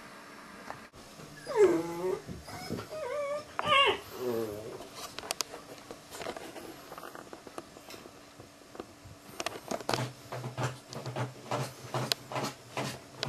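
A dog whining and whimpering in several high, wavering cries a couple of seconds in. Near the end comes a quick run of short, rough sounds.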